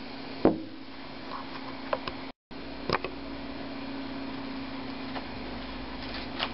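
Machined steel reloading-die parts clinking together: one sharp metallic click about half a second in as a part is set into the die body, then a few lighter clicks, over a steady low hum.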